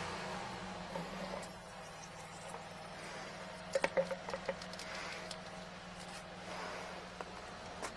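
A steady low mechanical hum, with a brief cluster of sharp wet clicks and squelches about four seconds in.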